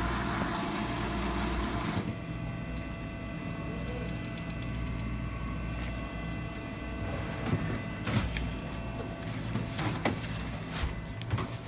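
A small machine starts about two seconds in and runs with a steady hum for several seconds. A few sharp clicks follow.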